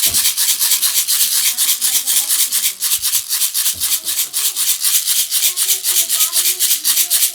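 Baby's rattle toy shaken steadily and fast, its loose beads swishing in an even rhythm of about six shakes a second.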